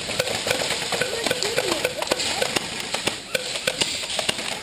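Scattered airsoft gunfire: many sharp clicks and snaps at irregular intervals, with players shouting in the background.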